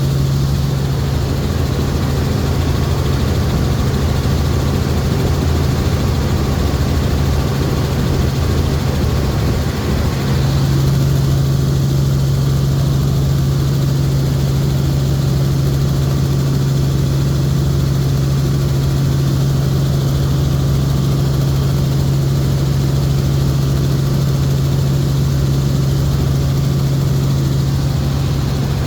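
Helicopter rotor and turbine running steadily, a constant deep drone over a wash of noise; the drone dips briefly and then comes back slightly stronger about ten seconds in.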